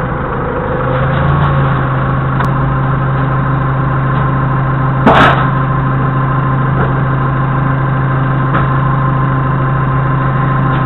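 Doosan 4.5-tonne forklift engine running steadily, with a single loud knock about five seconds in.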